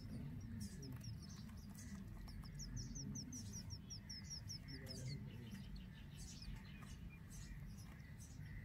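Indian robin nestlings begging: faint, high-pitched cheeps, with a quick run of short falling notes in the first half.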